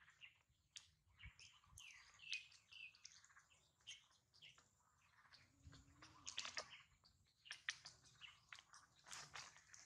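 Near silence: faint high chirps about two to three seconds in, with light scattered rustles and clicks as the baby monkey climbs over the plastic basket and the cloth.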